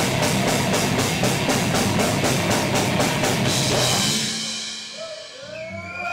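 A heavy metal band playing live and loud, with fast, evenly spaced drum hits under distorted guitars. The music fades out about four seconds in, and near the end a wavering tone slides up and down.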